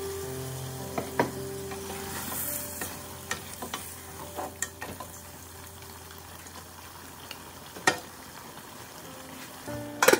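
Duck meat sizzling in a large aluminium pot while it is stirred with a wooden spatula that knocks against the pot's side a few times. Near the end the metal lid clanks down onto the pot.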